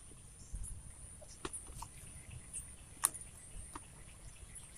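Quiet chewing with a few sharp crunches or clicks, the loudest about three seconds in, over a faint steady high-pitched tone.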